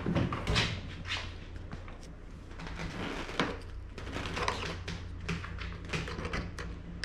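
Handling noise as the rope and fittings of a boat canopy are secured: irregular light clicks, knocks and rustling, over a steady low hum.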